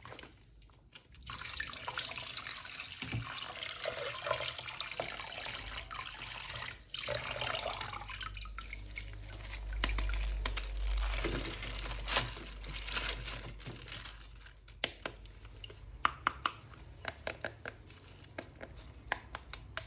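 Water running from a tap and splashing as a plastic toy figure is washed under it. In the last few seconds the water gives way to a run of small clicks and taps.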